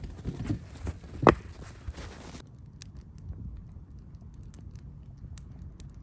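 Footsteps in snow with one sharp knock a little over a second in, then quieter with a few faint ticks.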